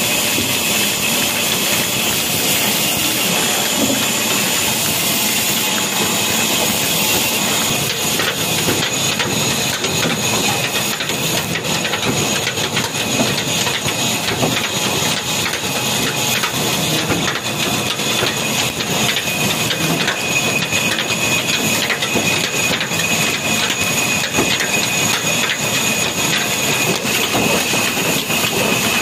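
Old Lahore-built stationary diesel engine of the Ruston type running steadily, its heavy flywheels turning and belt-driving a wood-cutting band saw. A steady hiss and two steady high tones sit over the engine's even beat.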